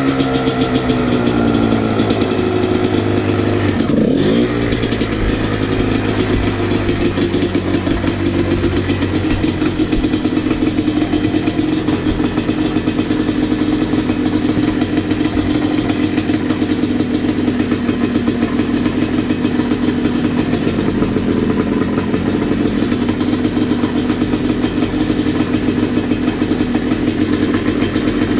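Dirt bike engine running steadily at low revs, near idle, with a brief drop and pick-up in revs about four seconds in.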